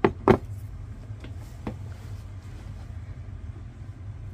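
Two sharp knocks close together, then a couple of lighter taps, as craft supplies are handled on a work mat, over a steady low hum.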